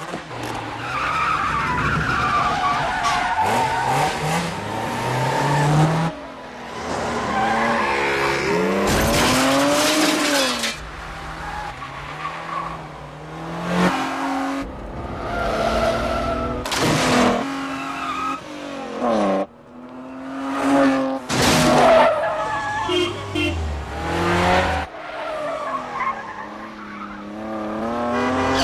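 Car engines revving hard through gear changes, the pitch climbing and dropping again and again, with tyres repeatedly squealing and skidding in a high-speed car chase.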